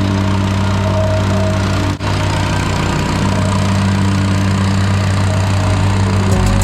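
An engine running at a steady speed, with a brief dropout about two seconds in.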